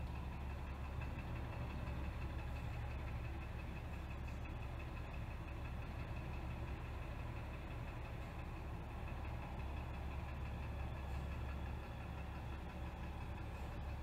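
Box truck's engine running with a steady low rumble as the truck pulls slowly out and turns, heard through a closed window.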